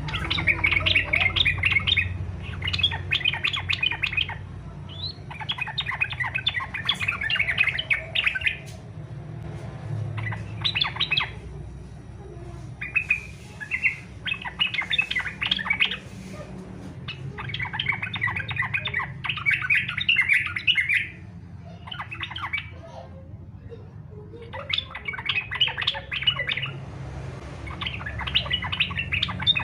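Yellow-vented bulbul (trucukan) singing its energetic 'fighter' song: bursts of fast, chattering notes, each a second or two long, repeated with short pauses, over a steady low hum. This is the challenging song that keepers play to spur their own bulbuls into singing.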